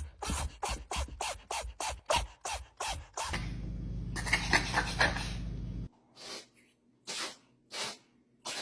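Cats sneezing in fits: a fast run of short sneezes, about three a second, then a few more sneezes spaced further apart.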